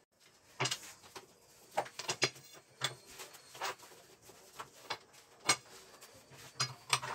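Long thin wooden rolling pin (oklava) knocking and clicking against a marble worktop as yufka dough is rolled out and wound onto it: a dozen or so light, irregular taps.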